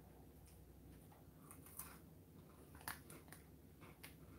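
Near silence with a few faint, short crunches of someone chewing a dry, crunchy snack.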